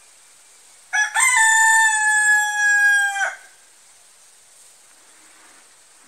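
A nattu koli (Indian country-breed rooster) crowing once, about a second in: a short broken start, then a long held note that sinks a little in pitch before it cuts off, about two seconds of crow in all.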